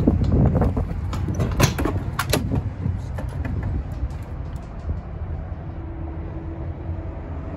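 A few sharp clicks and clunks in the first three seconds as someone climbs into a semi-truck cab through the door, then a steady low rumble.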